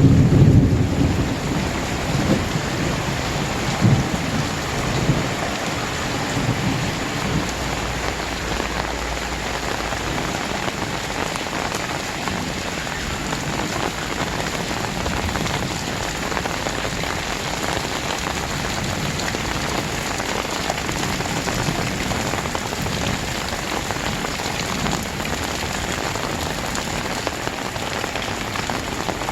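Very heavy rain pouring down steadily, with a low rumble of thunder in the first few seconds that dies away.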